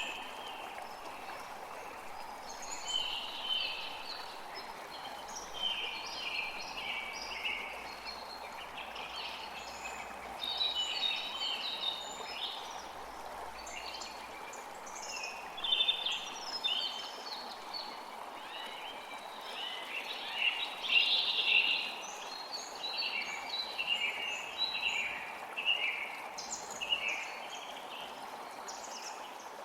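Many short bird chirps and song phrases, coming thick and fast, over the steady rush of a creek. The birdsong peaks about halfway through and again a few seconds later.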